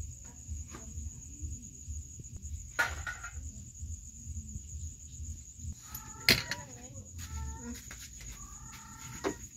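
Short, repeated animal calls starting about six seconds in, over a steady high-pitched whine and a low hum. There is a sharp knock at about the same time as the calls begin.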